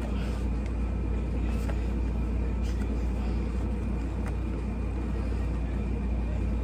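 Steady low rumble or hum, with a few faint, short clicks.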